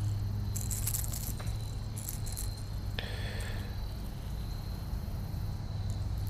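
Small metallic jingling and clicking as a hooked bluegill is unhooked by hand, the lure and hook rattling in two short flurries in the first couple of seconds, with a single sharp click at about three seconds. A steady low rumble runs underneath.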